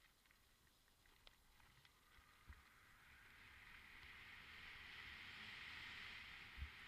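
Bike rolling downhill, heard from a helmet camera: a hiss of tyres on the trail swells over the first few seconds and then holds steady, with a couple of low knocks from bumps, one about two and a half seconds in and one near the end.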